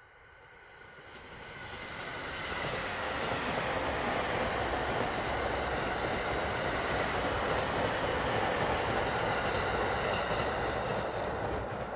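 JR East E231 series electric multiple unit passing close by, the running noise of its wheels on the rails growing louder over the first three seconds and then holding steady and loud as the cars go by.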